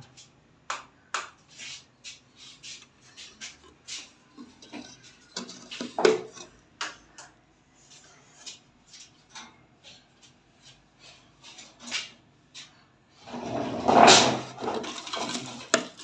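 Handling noise from a wire birdcage and a wooden nest box: short, sharp clicks and knocks at irregular intervals, then a louder rubbing scrape about thirteen seconds in that lasts about two seconds.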